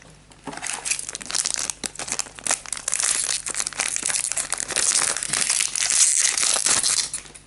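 Foil booster-pack wrapper crinkling and tearing as it is opened by hand: a dense crackle of small snaps that starts about half a second in and stops just before the end.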